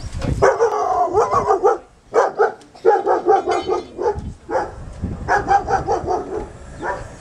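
A dog barking repeatedly in three quick bouts, with wind rumbling on the microphone.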